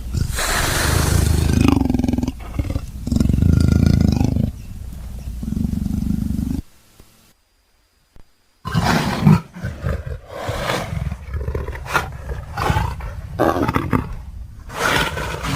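Dinosaur creature sound effect made from leopard vocalisations: long, deep roars for the first six and a half seconds or so, a pause of about two seconds, then a run of shorter snarls and growls.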